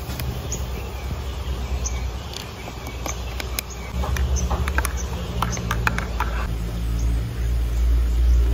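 Metal spoon stirring instant coffee in a ceramic mug, clinking against the sides in a run of light clicks, over a steady low rumble that grows louder in the second half.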